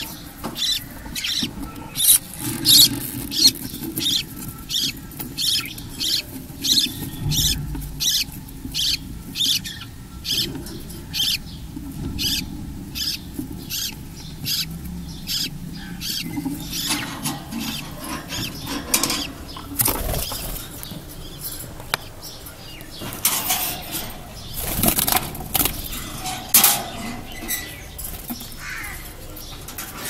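Budgerigar chicks in a nest box giving short raspy begging calls, about two a second. About halfway through they give way to irregular, louder noises.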